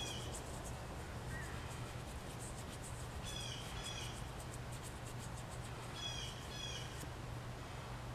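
A bird calling in pairs of short, clear notes, three times about three seconds apart. Under it run a steady low hum and faint scratchy rubbing.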